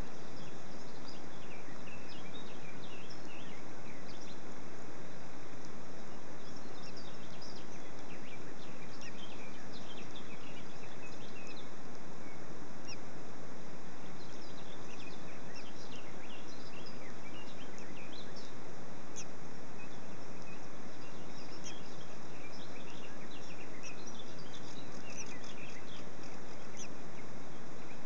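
Many short, high bird chirps scattered throughout over a steady background hiss.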